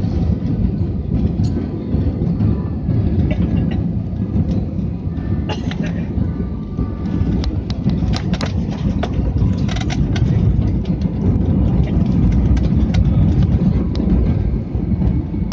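Airliner landing rollout heard from the cabin: a loud, steady low rumble of the engines and wheels on the runway, with frequent clicks and rattles from the cabin fittings.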